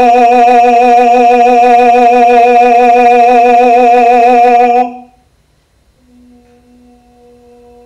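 A male singer holds one loud, unbroken note with a fast, even wobble, an extended-voice-technique treatment of an opera aria, and cuts it off abruptly about five seconds in. About a second later a faint tone at the same pitch sounds.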